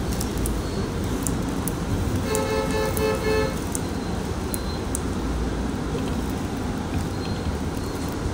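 Steady engine and road rumble, with a bus horn sounding a couple of seconds in for about a second, broken into quick short toots: a TransJakarta bus warning runners who are in its busway lane.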